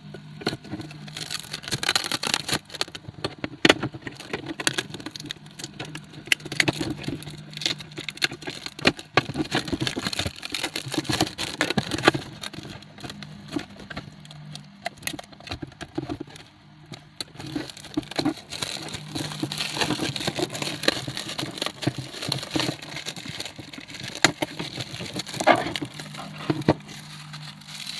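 Irregular crackling, crinkling and clicking of plastic packaging being handled, over a steady low hum.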